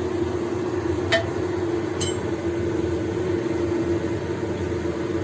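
A steady kitchen hum with a hiss under it, and two light metal clinks about a second apart as the metal dish of steamed egg is handled in its pan.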